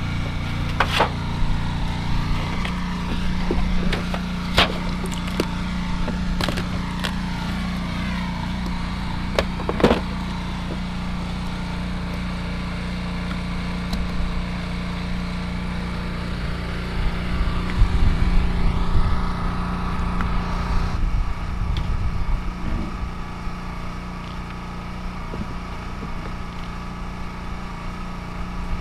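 A small engine runs steadily, driving the pump that pushes corn syrup feed through a hose into the beehives. Several sharp knocks of wooden hive boxes and lids stand out in the first ten seconds.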